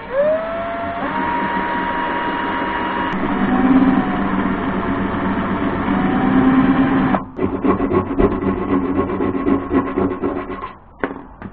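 Cordless drill spinning up and drilling a hole through the sheet-metal side of the air filtration unit's case, a steady motor whine with rough cutting noise. About seven seconds in it changes to a rougher, uneven grinding that stops near the end.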